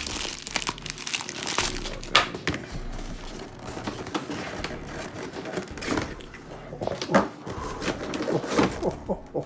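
Plastic packaging crinkling and cardboard box parts being handled, with irregular sharp crackles and knocks throughout.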